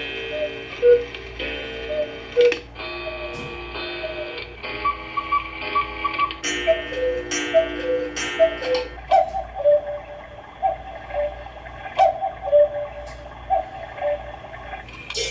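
Background music: a light melody of short, bright notes stepping up and down over chords, with a ticking feel.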